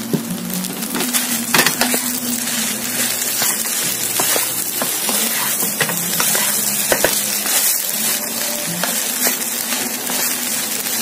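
Fried rice sizzling in a wok while being stir-fried with a wooden spatula, with a steady hiss and frequent short scrapes and taps of the spatula against the pan.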